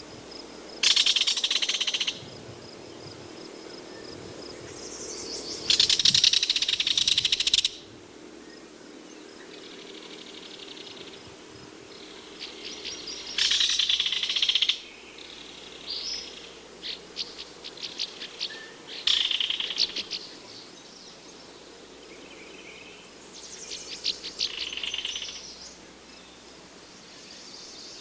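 Belted kingfisher giving its dry rattle call, a rapid, harsh run of clicks. It comes in bursts of one to two seconds, about six times, with pauses between.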